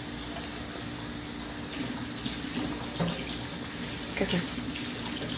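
Steady rush of water running, as from a tap, with a low steady hum underneath.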